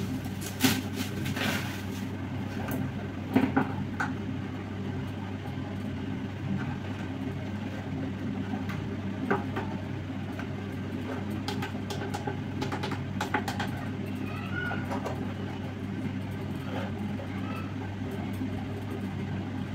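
Plastic bubble wrap crinkling, with light knocks and clicks as an induction cooktop is handled and turned over. These come mostly in the first few seconds and again around twelve seconds in, over a steady low hum.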